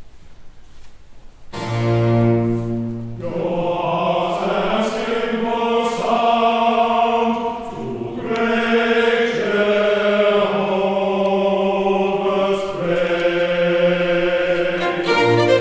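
Mixed choir and chamber string orchestra performing a Baroque oratorio chorus. After a brief lull, the ensemble comes in about a second and a half in, and the voices sing in full harmony over the strings, with a long cathedral echo.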